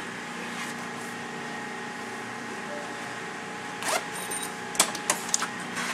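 Snap fasteners on a fabric UTV upper door being pressed shut by hand: the fabric rustles about four seconds in, then a few quick sharp clicks follow near the end.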